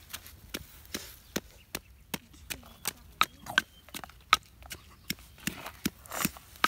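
A wooden pestle pounding red chillies and garlic in a small mortar, a steady run of sharp knocks about three a second.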